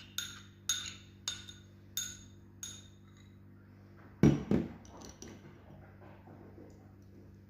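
Kitchen utensils clinking against a bowl and strainer: five light ringing taps about every half second, then two heavier knocks about four seconds in.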